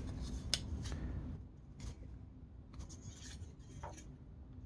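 Jointed plastic legs of an Acid Rain Marine Waterstrider toy being bent and handled: faint rubbing with a few sharp plastic clicks, the sharpest about half a second in.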